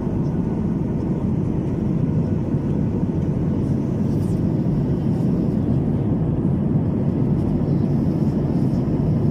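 Jet airliner cabin noise in cruise flight: a steady low rumble of engines and rushing air.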